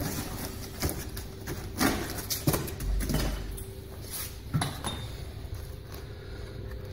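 Foam-insulated cover of a wall-mounted heating pump unit being lifted off its metal casing: scattered knocks, scrapes and rustles, about one a second, over a steady low hum.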